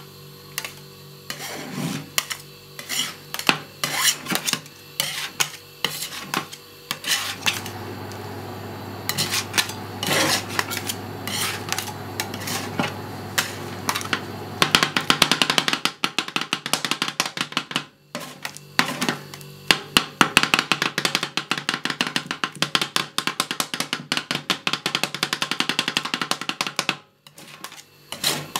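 Two metal spatulas chopping and scraping a curd-dessert ice cream base on a frozen metal cold plate. At first the taps come irregularly, then about halfway through they turn into rapid, steady chopping, with a couple of brief pauses.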